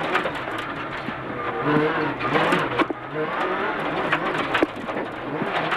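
Suzuki S1600 rally car's 1.6-litre four-cylinder engine, heard from inside the cabin, slowing hard for a tight right hairpin on gravel. The revs drop and rise again several times as the driver brakes and gets back on the throttle, over a steady tyre-and-gravel noise.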